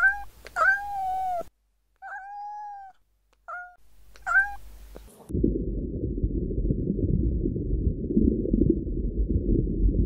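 Domestic cat meowing five times in the first five seconds, the second meow drawn out for nearly a second. About five seconds in, a steady low rumbling noise takes over.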